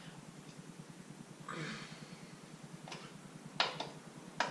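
A wrench working the bolts of a motorcycle frame brace: a short metallic rasp about a second and a half in, then a few sharp metal clicks, the loudest near the end.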